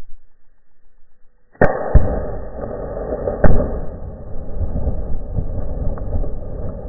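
A refrigerator exploding: a sudden loud bang about a second and a half in, two more bangs in the next two seconds, then a continuous loud rushing noise.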